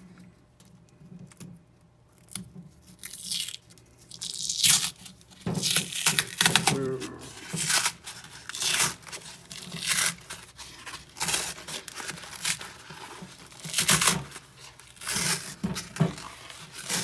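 Layers of a damaged enhanced SAPI body-armor plate being peeled apart by hand: a white liner sheet tearing away from the cracked boron carbide ceramic and the polyethylene backing. The tearing starts a couple of seconds in and comes in repeated ripping strokes.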